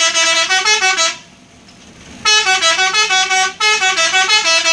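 Indonesian bus 'telolet' horn, a multi-tone musical horn playing a quick tune of short stepping notes. It plays one phrase of about a second, then after a pause of about a second a longer phrase of more than two seconds.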